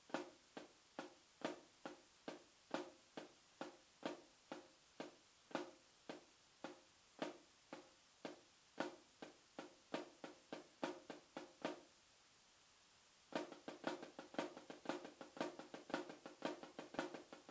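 Snare drum struck with sticks at different stick heights, the louder accents alternating with softer taps at about two strokes a second. After a pause of about a second and a half, about twelve seconds in, a faster, denser run follows that mixes accents, taps and quiet grace notes.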